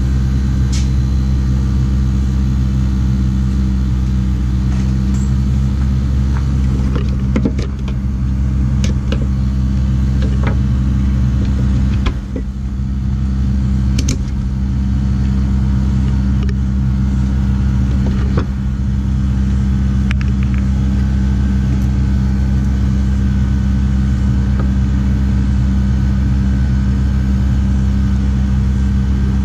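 Steady low mechanical hum of machinery running, with a few light clicks and knocks of handling along the way.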